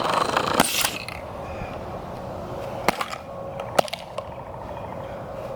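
Metal scraping for about the first second, then a few sharp metallic clicks, as a spent spray paint can is pried and cut open with hand tools.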